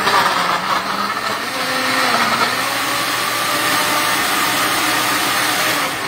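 Countertop blender running loud and steady, blending a fruit-and-spinach smoothie. The sound drops off near the end.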